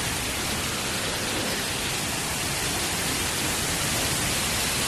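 Steady, unbroken rush of a waterfall: falling water hissing evenly, with no pauses or changes.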